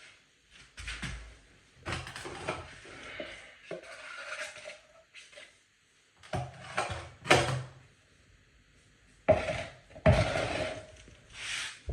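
Metal drywall taping knife scraping and knocking against a mud pan, loading and working joint compound, in three bursts of strokes.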